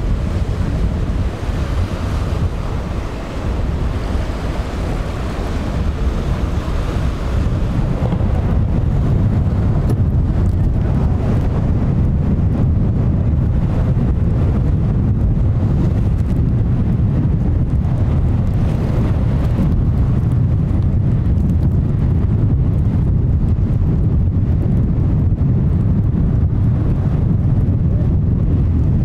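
Strong wind buffeting the microphone over breaking surf in a rough inlet. About eight seconds in it becomes a louder, steadier low rumble: wind and surf mixed with the triple Yamaha 300 outboard engines of a Grady-White center console running through the waves.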